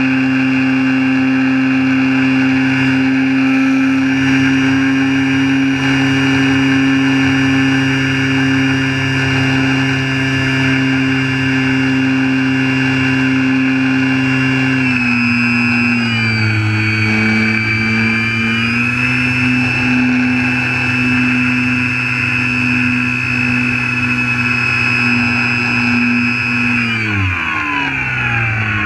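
Radio-controlled airplane's motor and propeller running steadily at high throttle, heard from a camera on board. About halfway through the pitch drops a little and wavers. Near the end it falls away sharply, then starts to climb again.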